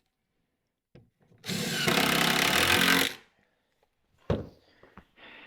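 A power drill-driver runs for about a second and a half, driving a screw into wood. A single sharp knock follows a few seconds in.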